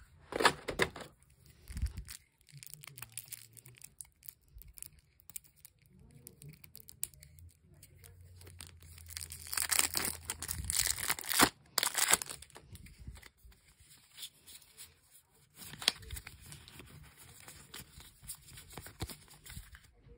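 Card decks and plastic wrapping being handled: irregular crinkling and rustling of plastic with small taps and clicks, busiest and loudest about ten seconds in.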